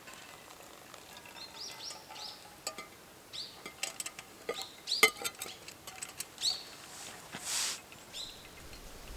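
A small bird chirping repeatedly, short rising calls, with scattered sharp clicks and clinks among them and a brief hiss near the end.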